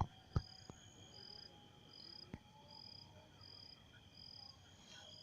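Faint crickets chirping: a short high chirp repeating about every three-quarters of a second over a steady high insect trill. A few sharp clicks sound near the start and once more in the middle.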